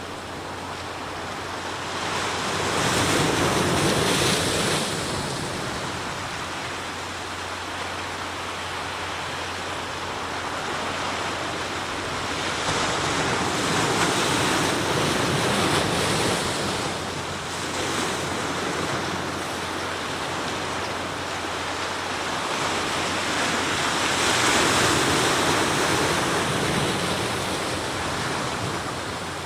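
Sea waves breaking and washing on the shore, the surf swelling and falling back in three long surges about ten seconds apart.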